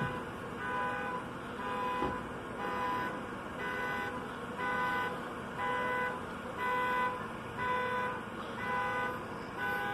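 Car alarm sounding a repeated electronic tone, pulsing on and off about three times every two seconds.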